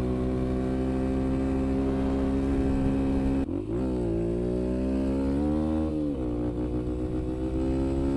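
Yamaha TT-R125's single-cylinder four-stroke engine running under way, heard from on the bike. It holds a steady pitch for about three and a half seconds, then breaks off abruptly to lower revs. The engine pitch then climbs, dips near six seconds, and rises slowly again as the bike pulls along.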